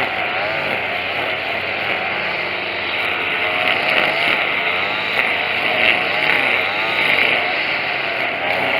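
Tanaka TCG22 22 cc two-stroke string trimmer engine running at speed, its pitch wavering rapidly up and down. It is running smoothly on a newly replaced carburetor.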